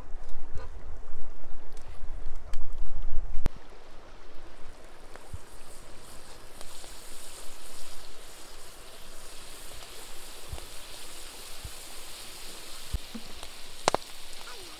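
Butter sizzling on a hot cast-iron griddle over campfire embers, a steady hiss that builds from about five seconds in. Before that, a low rumble while the steak is handled, and a sharp knock near the end.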